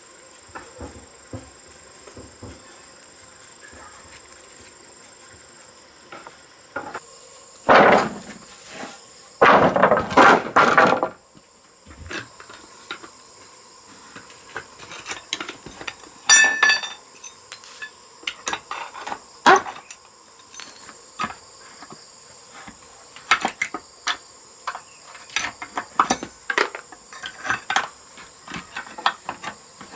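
Steady high insect drone, with intermittent knocks and clatter from hand work. The knocks come as scattered taps, with the loudest strikes about eight seconds in and again around ten seconds.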